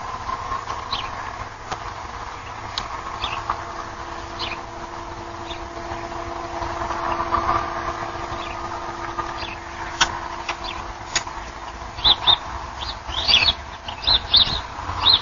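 Outdoor ambience with a steady low hum and scattered short high bird chirps, which come thick and fast from about twelve seconds in.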